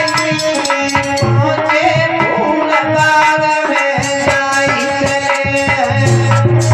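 Instrumental interlude of an Indian devotional bhajan: tabla playing a steady rhythm under a sustained melody instrument, with no singing in the foreground.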